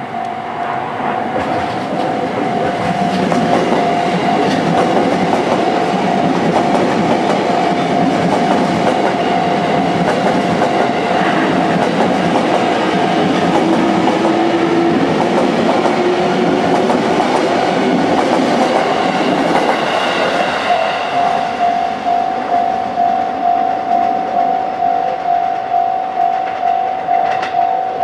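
Railway level-crossing bell ringing while a JR East E233-series electric train passes over the crossing, its wheels clattering on the rail. About twenty seconds in the train noise falls away and the bell's strokes are heard on their own, about two a second.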